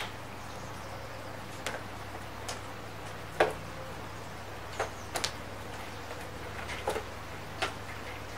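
Rain on a balcony: large drops tick irregularly and sharply, about a dozen times, over a steady hiss of rain and a faint low hum, the loudest drop about three and a half seconds in.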